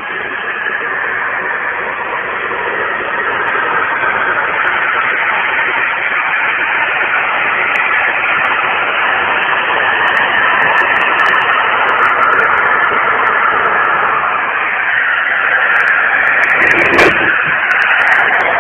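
An 11-metre CB radio's speaker giving out a steady hiss of static while tuned to the 27 MHz band. A single knock comes near the end.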